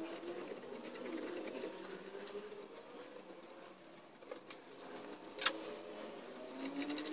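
Hand tap turned in a T-handle tap wrench, cutting a thread into a steel block: squeaking and scraping of the tap in the metal, with a sharp click about five and a half seconds in.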